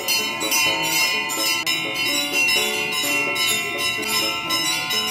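Temple bells ringing in a fast, steady rhythm of about three strokes a second during an aarti, with music playing along underneath.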